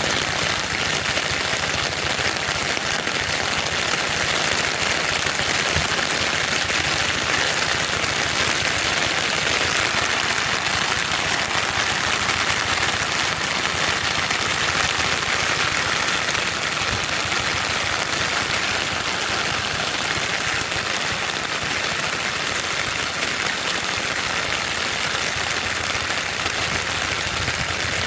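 Heavy rain falling steadily: a dense, even hiss of drops with fine patter underneath.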